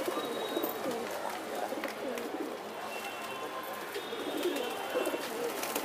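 A flock of domestic pigeons cooing, many low coos overlapping without a break.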